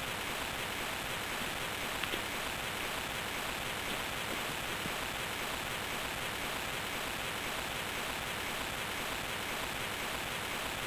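Steady, even hiss of background noise, with a couple of faint clicks about two seconds in.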